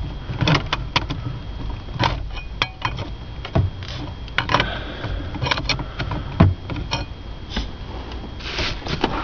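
Irregular clicks and light knocks of small shifter parts being handled while a Ford Explorer column shifter is taken apart, with a heavier knock about six and a half seconds in.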